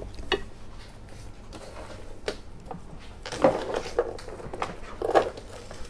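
A serrated knife scraping as it peels the skin off a kiwifruit, in a few short, soft scrapes and clicks, the clearest about three and a half and five seconds in.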